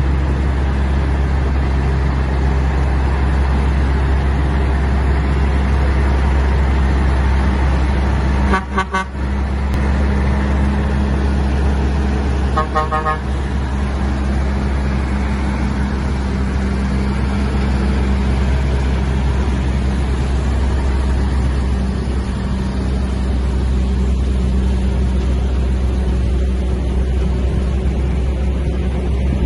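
Heavy-haul trucks' diesel engines running in a steady low drone as the convoy moves, with two short horn toots about nine seconds in and again about four seconds later.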